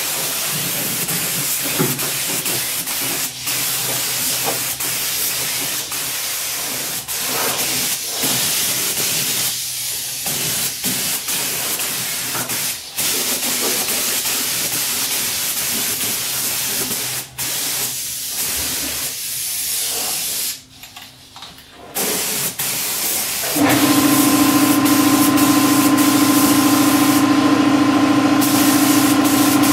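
Compressed-air gravity-feed spray gun hissing as primer is sprayed, the air stopping briefly between passes. About 24 seconds in, an air compressor starts and runs with a steady, louder hum under the hiss of the gun.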